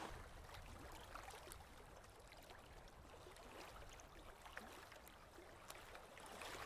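Near silence, with faint lapping and trickling of river water at the surface.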